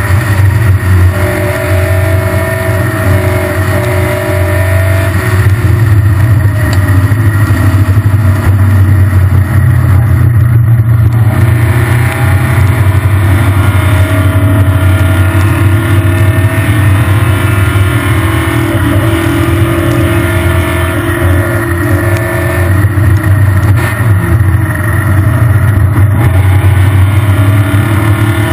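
Triumph Spitfire production race car's four-cylinder engine running hard, heard loud from the open cockpit, its note dropping and rising as the car brakes for corners and accelerates out of them.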